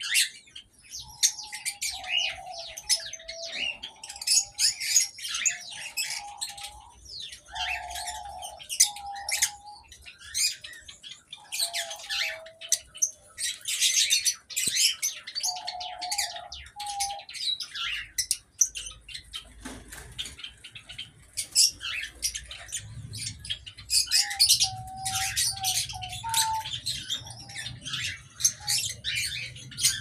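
Aviary of small cage birds (lovebirds, cockatiels, Java sparrows) chirping constantly in a dense, overlapping chorus. A lower call comes and goes in short spells, and a faint low hum joins about two-thirds of the way in.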